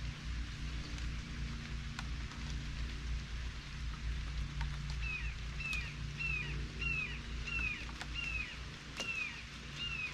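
A songbird repeats a short downward-slurred call note about twice a second, beginning about halfway through, over a steady rain-like hiss with a few sharp drip-like ticks and a low steady hum.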